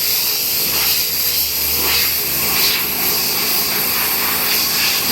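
Compressed-air spray gun spraying contact cement, a steady loud hiss.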